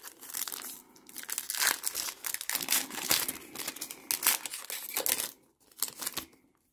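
Foil Pokémon booster pack wrapper crinkling and crackling as it is handled and opened, dying away to a few faint rustles after about five seconds.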